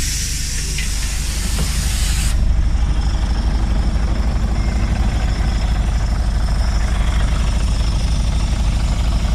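Scania OmniCity CN94UA bus idling with an even low engine pulse, while a burst of compressed air hisses out for about the first two seconds. The engine gets a little louder after the hiss stops.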